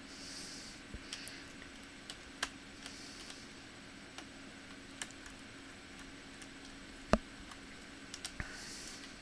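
Irregular light clicks and taps of small hard parts being handled during a laptop teardown, with a few short rustling hisses and one sharper click about seven seconds in. A faint steady hum runs underneath.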